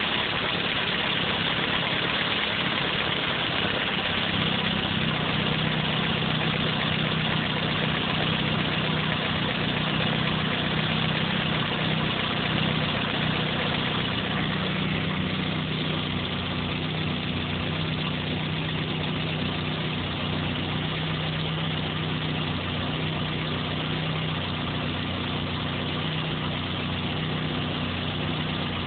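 Vauxhall VXR turbocharged engine idling steadily with the bonnet open, a constant low engine note under a hiss, with no revving.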